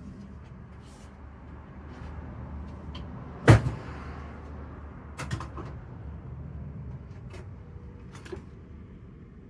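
Hand tools being handled on a workbench: one loud knock about three and a half seconds in and a few light clicks and taps, over a steady low hum.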